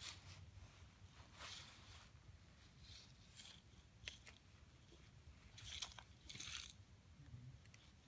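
Plastic toy front loader's bucket scraping and crunching through coarse sand, in a few faint, short scrapes, the longest a little after six seconds in.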